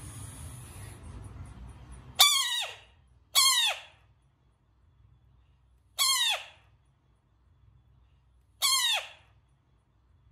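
A faint rustling hiss, then four short high squeals, each dropping steeply in pitch: two close together about two seconds in, then one around six seconds and one near nine seconds.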